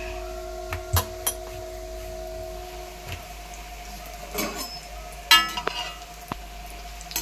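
A slotted metal spoon clanking against a metal kadhai while stirring mathri frying in oil: one loud ringing clang about five seconds in, then a few smaller clinks. A couple of light knocks come earlier.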